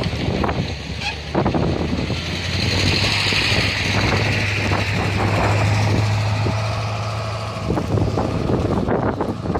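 An engine hums steadily for several seconds, swelling and then fading, with wind buffeting the microphone.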